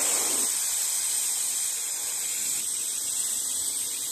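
Helium rushing from a helium cylinder's nozzle into a foil number balloon as it inflates: a steady, high-pitched hiss.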